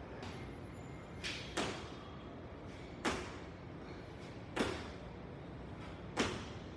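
Sneakers landing on the floor during jump squats: a thud about every second and a half, with a softer one just before the first.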